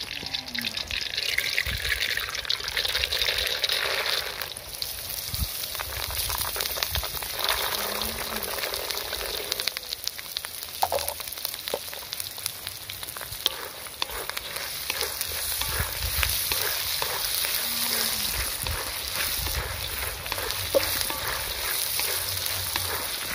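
Oil sizzling in an iron wok, then raw peanuts frying in it with a steady, crackling sizzle.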